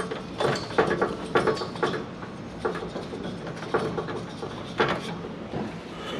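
Propane cylinder's valve handwheel turned by hand to shut off the gas to the grill: a run of irregular short clicks and creaks.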